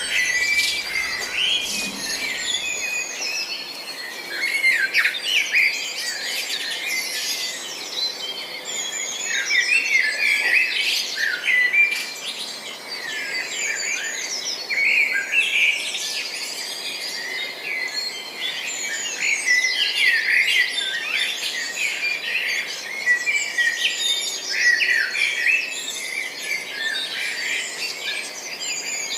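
A chorus of songbirds chirping, many short high chirps and trills overlapping without a break.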